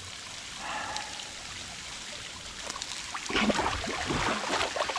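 Water trickling steadily into a rock pool, then, from about three seconds in, louder irregular splashing as a person gets into the cold water.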